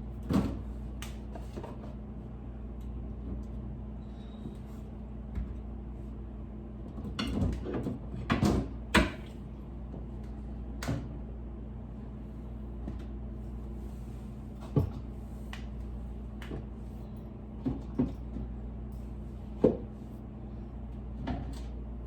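Food containers and items being knocked, set down and moved about while a refrigerator is cleared out: a dozen or so separate clunks and clatters, a cluster of them about eight seconds in, over a steady low hum.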